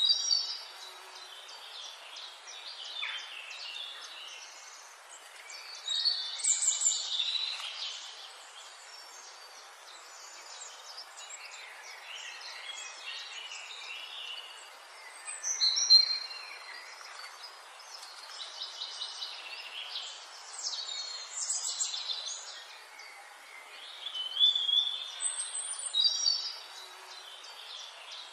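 Small forest birds singing: a high, quick, warbling song phrase comes back about every nine seconds, with softer chirps between, over a steady background hiss.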